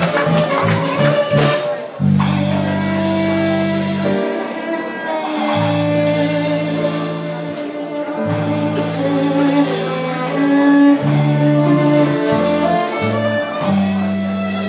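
A live band playing an instrumental: a violin carries the melody over electric bass guitar and a drum kit. About two seconds in, the low notes change from quick short ones to long held ones.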